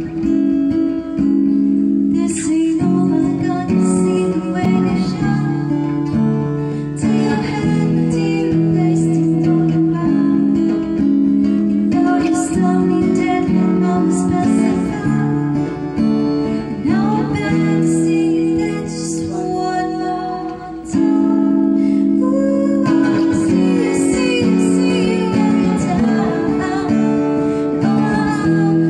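Acoustic guitar strummed in a steady rhythm, with a woman singing over it.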